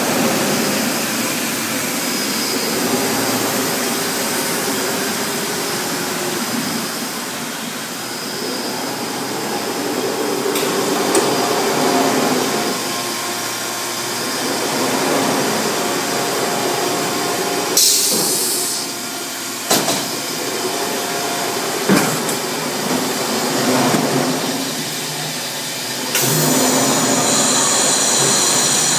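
Milnor continuous batch washer (tunnel washer) and the industrial laundry machinery around it running: a loud, steady mechanical din. A short high hiss comes a little past the middle, with a couple of sharp knocks soon after, and a steady high hiss sets in near the end.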